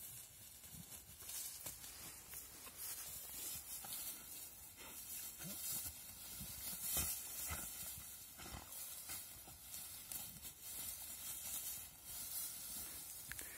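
Two dogs play-fighting in dry grass: faint, irregular rustling and scuffling.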